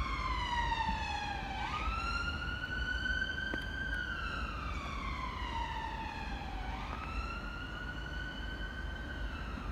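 Emergency vehicle siren in a slow wail: its pitch slides down over a few seconds, then jumps back up, twice, over a steady low rumble.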